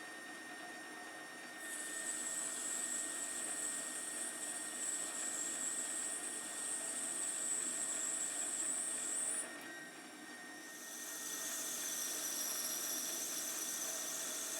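Metal lathe running while the tool turns down the diameter of a knob: a steady high-pitched cutting sound about two seconds in, stopping briefly near the ten-second mark, then a second pass with a slightly lower high-pitched cutting sound.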